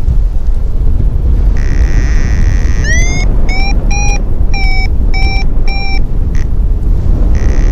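Paragliding variometer sounding over a heavy rush of wind on the microphone: a short buzzing tone, then a beep rising in pitch and a run of short beeps a little under two a second, the vario's climb tone for lift. Another buzz near the end leads into a further rising beep.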